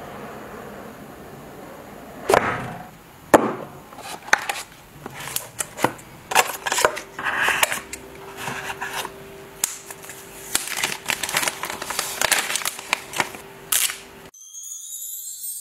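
Cardboard phone packaging being handled: the box lid and inner tray knocked and slid, with many sharp clicks and rustles of paper and plastic. Two loud knocks come about two and three seconds in. The last second switches to music.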